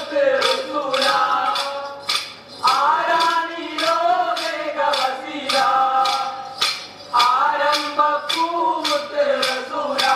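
Kolkali stick dance: short wooden sticks clacking together in a steady rhythm, about two to three clacks a second, under a group singing the dance song.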